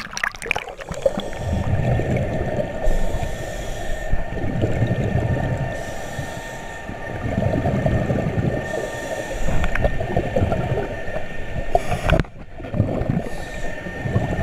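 Underwater sound of a scuba diver breathing through an open-circuit regulator: exhaled bubbles rumble and crackle past the camera in waves about every five or six seconds, with quieter gaps between breaths.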